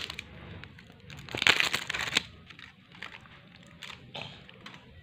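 Packaging crinkling and tearing as the seal is peeled off a small plastic chocolate-snack cup, in one loud stretch of about a second that starts about a second in. A few light clicks and rustles of handling follow.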